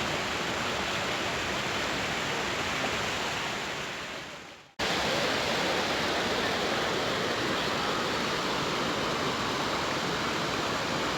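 Waterfall rushing, a steady wash of falling water. It fades away about four and a half seconds in, goes silent for a moment, and comes back suddenly.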